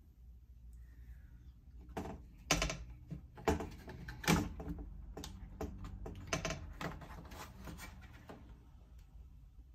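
Handling noise of a circuit board being worked loose from a metal amplifier chassis: a run of irregular clicks, knocks and rattles, the three loudest knocks about a second apart starting some two and a half seconds in.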